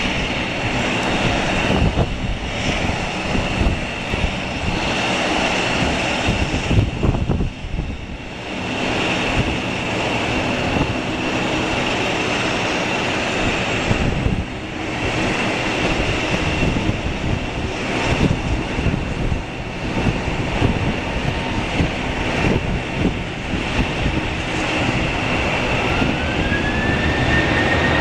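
Boeing 737-900ER's CFM56-7B jet engines running at taxi power: a steady high whine over a broad rumble. Near the end a second whine rises in pitch and levels off as the engines start to spool up for the takeoff roll.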